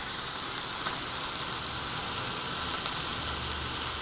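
Chicken breasts sizzling steadily inside a closed contact grill and panini press cooking on high, with a few faint ticks.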